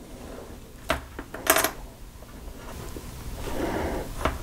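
Hand-work on heavy 8-gauge wire: a razor blade cutting through and working off the insulation, with a sharp click about a second in, a short scrape half a second later and a rising rustle near the end.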